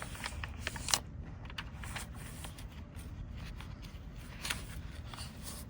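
Paper and cardstock rustling and scraping in irregular short clicks as a tucked-in paper is worked out of a tight journal pocket, with a sharper snap about a second in.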